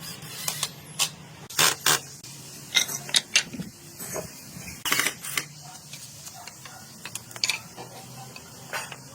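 Irregular sharp clicks and knocks over a steady low hum.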